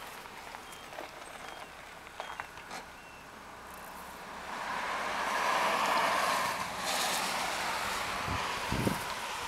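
A car passing on the road, swelling from about halfway through and easing off near the end, with a couple of low thumps close to the end.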